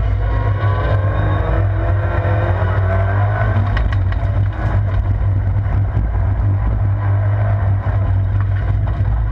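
Vauxhall Corsa rallycross car's engine heard from inside the stripped cabin, loud and climbing in pitch as it pulls hard for the first three or so seconds. About four seconds in, the car crosses onto loose dirt and the sound turns rough, with stones and grit rattling against the underbody over the engine's steady drone.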